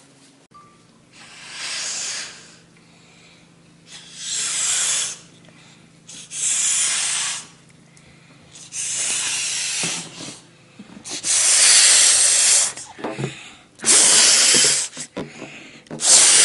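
A rubber balloon being blown up through the nose: seven long breathy puffs of air into the balloon, each about a second long, getting louder toward the end.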